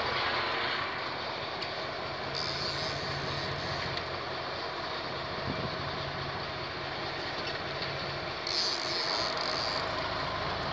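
Boat engine running steadily with a low hum, under a constant wash of noise, and two short bursts of high hiss partway through.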